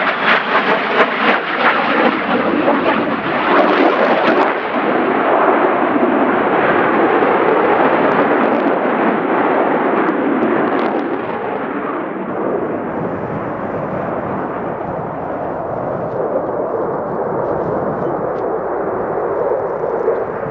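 Twin jet engines of a Boeing Super Hornet fighter roaring through a display pass, with a crackling edge in the first few seconds. The roar gradually dulls as the jet moves away.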